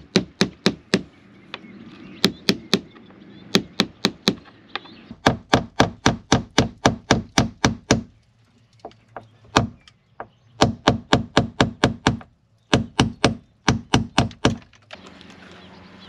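Hammer blows struck in quick runs of about four a second, with a few short pauses between runs.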